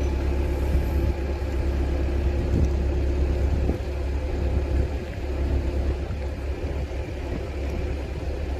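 Canal cruise boat's engine running: a deep, steady drone with a few fainter steady tones above it, getting a little quieter about four seconds in.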